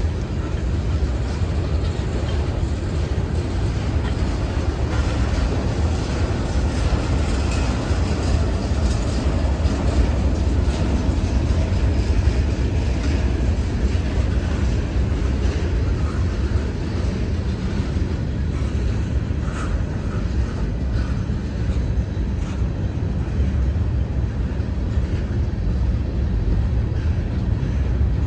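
Freight train rolling past: a steady, unbroken low rumble of wheels on rail with faint clicks.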